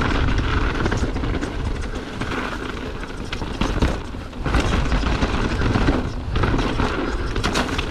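Wind rumbling on the camera's microphone as a mountain bike rolls down a rocky dirt trail, with tyres crunching over loose stones and the bike rattling in frequent sharp knocks. The noise drops briefly about four seconds in.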